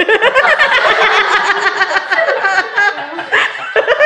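Several people laughing excitedly at once, a dense, pulsing run of laughter with no words.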